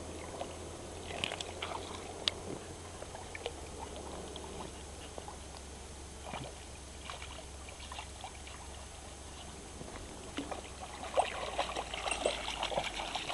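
A puppy paddling through water, with scattered small splashes and sloshes; about eleven seconds in the splashing grows denser and louder as she scrambles out onto the bank.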